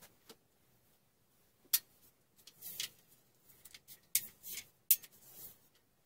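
Bar clamps being handled and set: three sharp clicks, about 2, 4 and 5 seconds in, with short scraping rattles between them.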